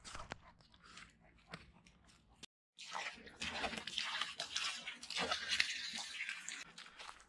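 Great Dane drinking from a running outdoor spigot, lapping and biting at the stream, with water splashing; this starts about a third of the way in and is the loudest sound. Before it come a few faint steps on dry leaf litter.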